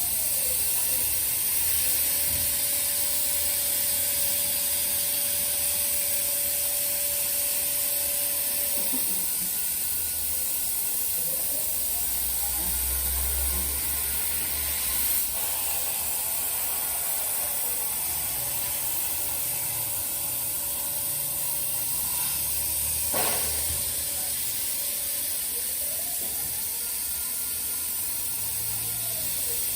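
CNC plasma cutter cutting thin steel sheet: a steady high hiss from the plasma torch, with the machine's drive motors whining in tones that hold steady for stretches and then rise and fall in slow arcs. A sharp click sounds twice, the stronger one near the end.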